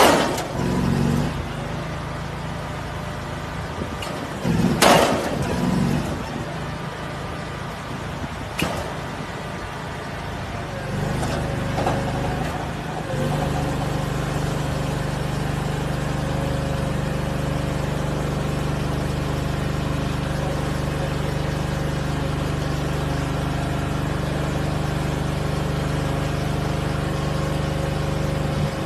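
Heavy diesel engine of the pile-driving rig running steadily, its note settling and holding from about halfway through. In the first half, a few separate loud bangs, the loudest about five seconds in.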